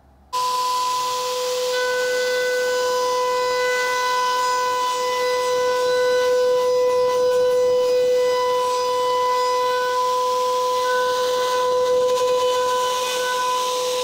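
High-speed router spindle with a profile molding bit starting up suddenly and running with a loud, steady high whine while it cuts a molding profile along a pine board.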